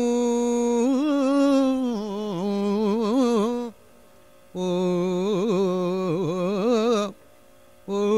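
A solo voice singing a slow, heavily ornamented melody in South Indian classical style: a long held note, then wavering, gliding phrases. It breaks off into silence twice for just under a second, a little before halfway and near the end.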